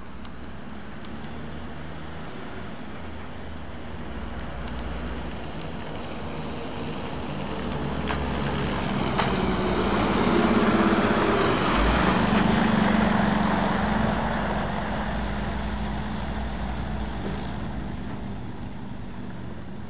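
MAN SV military cargo truck's diesel engine running as the truck drives up and passes close by about halfway through, then fades as it pulls away. Tyre noise on the wet road swells as it goes past.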